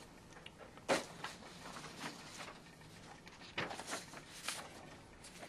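Quiet handling noises on a tabletop: a sheet of paper rustling as it is slid across the table, with a few short soft knocks. The loudest knock comes about a second in.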